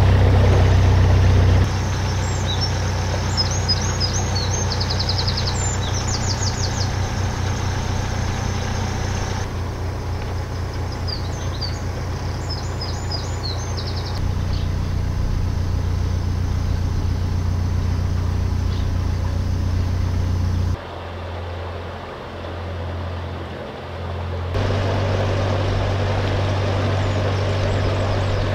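Narrowboat engine running with a steady low hum as the boat cruises. Songbirds chirp over it in two short spells. The hum drops a little in level a few times, and from about three-quarters of the way through it goes quieter for a few seconds.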